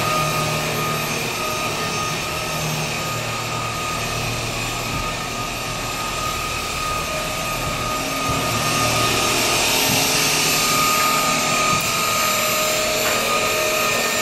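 K9 Reliance cordless stick vacuum running over a hard floor: a steady motor whine over a rushing airflow hiss, growing a little louder and brighter about eight seconds in.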